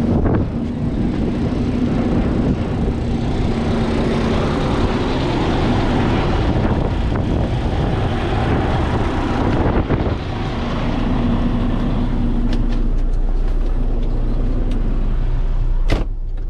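Heavy diesel engine running steadily, with a sharp click near the end.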